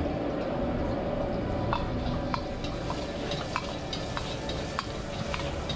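A metal ladle stirs and clinks against a carbon-steel wok as chopped food sizzles in hot oil. Sharp, irregular clinks of the ladle on the wok start about two seconds in.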